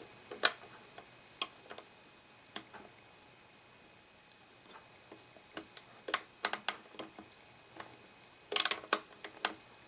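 Scattered sharp clicks and taps of small metal parts and hand tools being handled while an analog pyrometer is taken apart. There is a quiet stretch in the middle, then a run of clicks and a denser flurry near the end.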